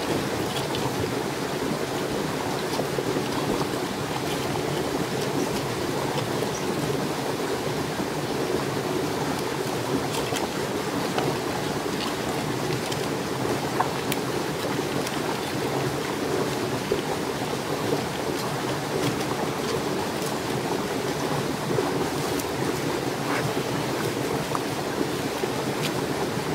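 Steady rushing noise, like flowing water, with faint scattered clicks as boiled crab shell is picked apart by hand in a clay pot.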